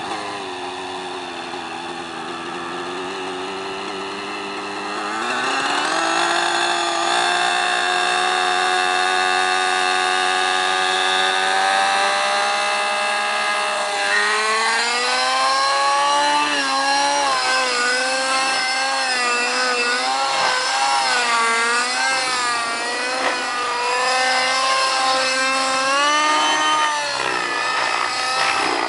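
Align T-Rex 600 RC helicopter's nitro glow engine: idling, revving up about five seconds in as the rotor spools, rising again about fourteen seconds in at lift-off, then its pitch wavers up and down in flight and dips near the end.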